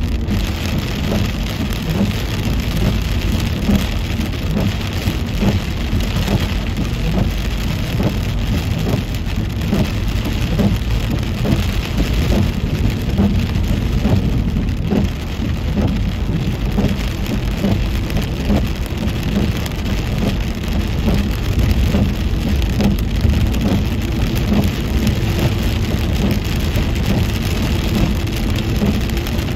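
Rain falling on a car's windshield and roof, heard from inside the moving car as a dense steady patter. Under it runs a low rumble of the tyres on the wet road.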